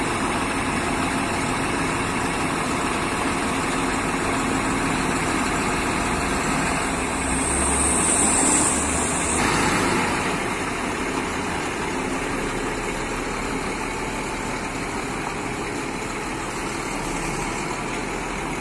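Diesel engine of a coach bus running as the bus pulls away, with a high hiss that cuts off suddenly about halfway through. The engine sound then slowly fades as the bus moves off.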